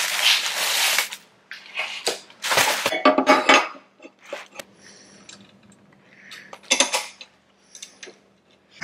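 Steel mounting brackets and an aluminium condenser frame being handled on a steel workbench: a scrape in the first second, then a run of metal clanks and clinks, with a few lone clinks later.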